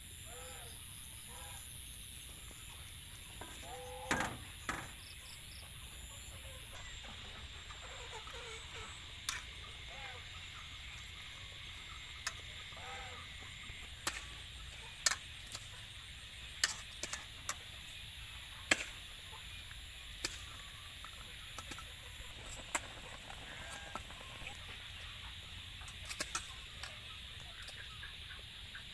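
Rural outdoor background: chickens clucking now and then over a steady high-pitched whine, with scattered sharp clicks throughout.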